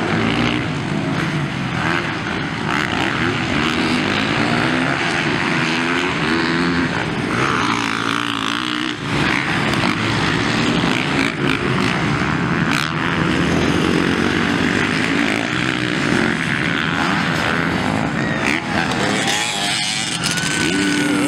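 Motocross dirt-bike engines racing, revving up and dropping back again and again as the riders work the throttle.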